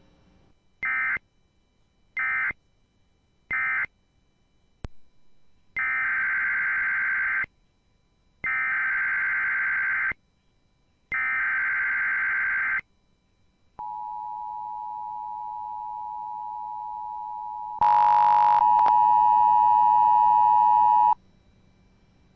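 Emergency Alert System digital tones: three short warbling data bursts (the end-of-message code), then three longer bursts (the SAME header of the next alert). The two-tone EAS attention signal follows, a steady buzzing chord about seven seconds long that jumps louder and harsher near the end before cutting off.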